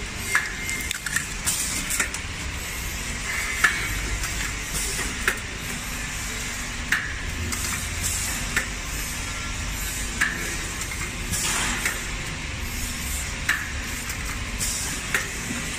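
Automatic blister packing machine running: a steady low hum with a short sharp click about every second and a half as it cycles, and a few brief hisses.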